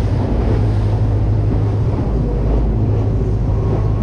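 A boat's engine drones steadily, with wind buffeting the microphone and sea noise.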